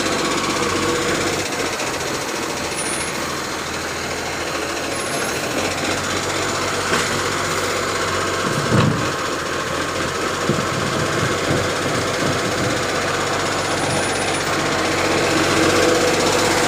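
Side-loading garbage truck's diesel engine running steadily close up, with a single thump about nine seconds in.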